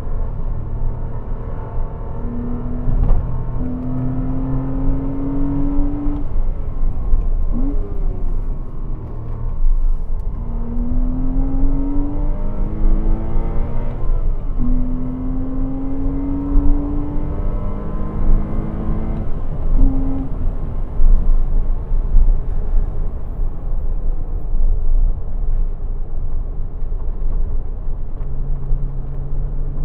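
Porsche Cayman 987's 2.7-litre flat-six at speed on track, its note climbing in pitch several times as it pulls through the gears, over a steady rush of noise.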